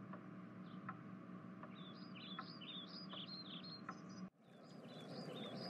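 Faint birdsong: quick, repeated high chirps over a steady low background hum, with the sound cutting out for a moment a little after four seconds in.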